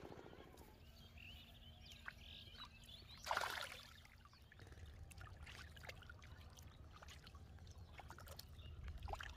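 A fish thrashing in shallow water, with one sharp splash about three seconds in and faint smaller splashes and trickling around it. A low rumble runs underneath.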